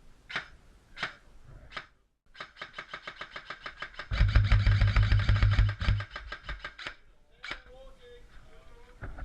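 Airsoft electric gun (AEG) firing: a few single clicks, then a long run of rapid, even shots on full auto, loudest in the middle with the gearbox motor humming under them.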